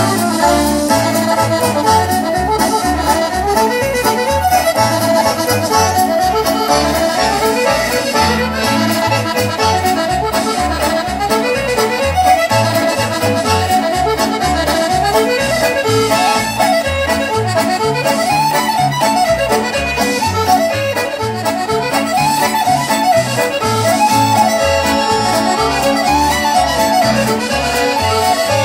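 Lively traditional dance tune: a fast, running melody over a steady, regular bass beat, playing without a break.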